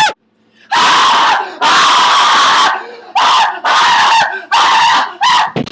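Young men's voices making raspy, hoarse screeching noises: two long shrieks, then four shorter ones in quick succession.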